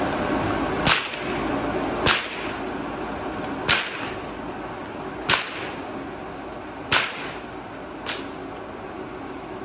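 A whip cracked overhead six times, about one to one and a half seconds apart, over the steady whir of the blower fans inflating the tube men.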